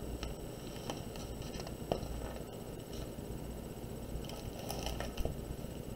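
Pages of a hardcover picture book being turned and the book handled: soft paper rustles and light taps, the sharpest tap about two seconds in.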